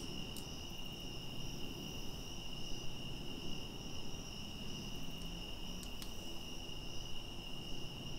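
Crickets trilling steadily, with a few faint clicks about half a second in and again around six seconds in.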